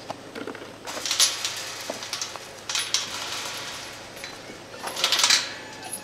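Metallic clinking and jangling in three short bursts about two seconds apart.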